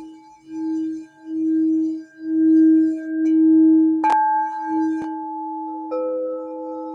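Crystal singing bowls ringing in sustained tones. The lowest bowl swells and fades in a slow pulse about once a second, a higher bowl is struck about four seconds in, and another bowl joins near the end.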